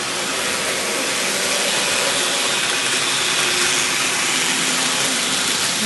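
N-scale model trains running on the layout: a steady whirring hiss of small motors and wheels on track, growing slightly louder.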